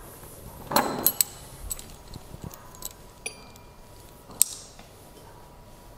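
Metal fittings at the top of a stainless steel still column clinking as they are handled: a rustle and a few light clicks about a second in, a click that rings briefly about three seconds in, and a sharper click a little later.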